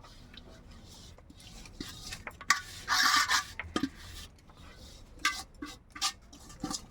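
Light scraping and clinking against a cooking pot as ghee is smeared around its inside, with a longer scrape about three seconds in and a few sharp clinks near the end.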